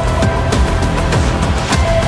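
Dramatic background music with deep drum hits a little under twice a second and sustained high notes over them.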